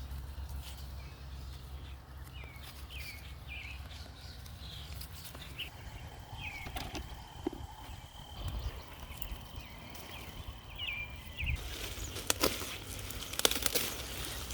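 Outdoor garden ambience: small birds chirping in short repeated calls, with a thin, steady high-pitched tone held for about six seconds in the middle. Near the end come sharp clicks and rustles of someone handling plants.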